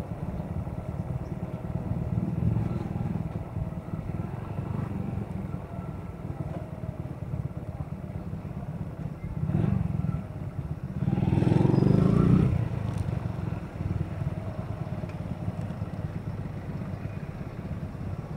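Motorcycle engine running while riding through town streets, heard from the bike. It grows louder for about a second and a half, starting about eleven seconds in.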